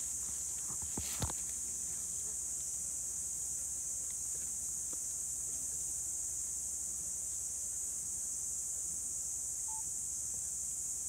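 Steady, high-pitched drone of insects, unbroken throughout, with a couple of faint clicks about a second in.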